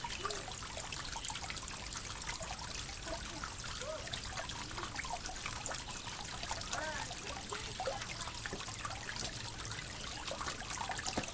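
Small creek trickling over rocks: a steady wash of running water with many little bubbling blips.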